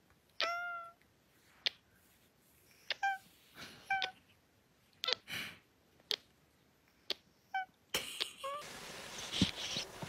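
Orange tabby cat giving several short, complaining meows, the first one longer, while being kissed on the head. Between the meows come sharp little smacks of the kisses, about one a second.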